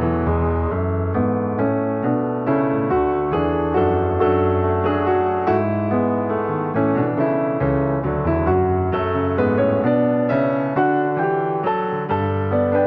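Background piano music: a steady run of struck notes over sustained bass notes.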